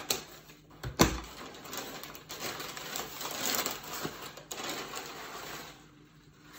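Scissors snip twice, sharply, into the paper wrapping. Then the crinkly brown kraft paper around the flowers rustles for several seconds as it is pulled open, dying away near the end.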